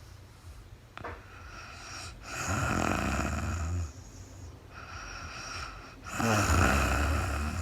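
A sleeping woman snoring: two snores about three and a half seconds apart, each a low rattling rumble on the in-breath, the second louder, with quieter breathing between them. A brief click about a second in.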